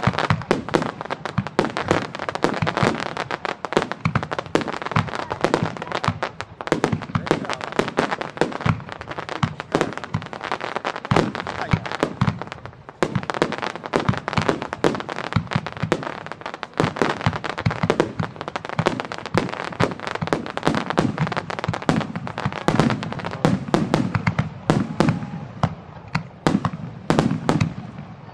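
Aerial firework shells bursting in a dense, continuous barrage of rapid overlapping bangs. Toward the end the bangs turn into lower, fuller booms.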